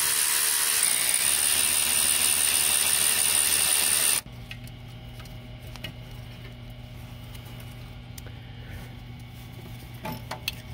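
Cordless power ratchet running for about four seconds, spinning out a bolt that holds the hydrocarbon doser: a steady high motor whine that cuts off suddenly. After it, faint clicks of metal parts being handled over a low steady hum.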